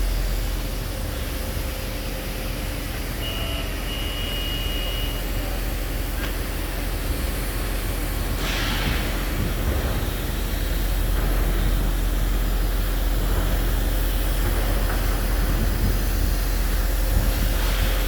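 Heavy diesel construction machinery running with a steady low rumble. A single high beep sounds about three seconds in, and a short hiss comes a few seconds later.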